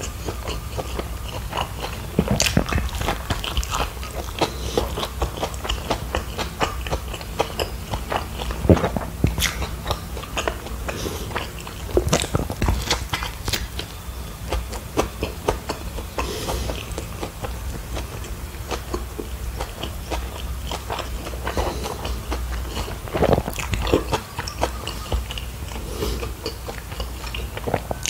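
A person chewing a mouthful of beef burger close to a clip-on microphone: irregular mouth smacks and clicks, some louder than the rest.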